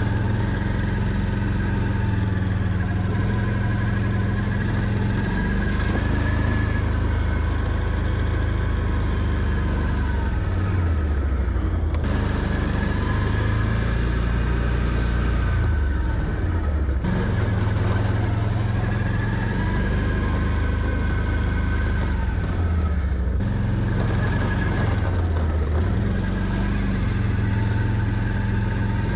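Can-Am Outlander 650 ATV's V-twin engine running under load while plowing snow. The revs rise and fall in repeated pushes every several seconds.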